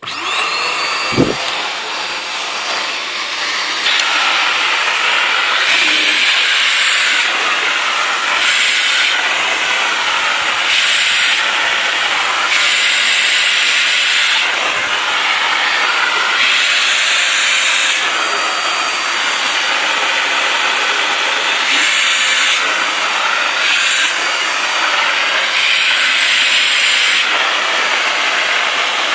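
Vacuum cleaner switched on, its motor whine rising as it spins up, with a thump about a second in, then running steadily with a loud rushing suction hiss that shifts in tone every second or two.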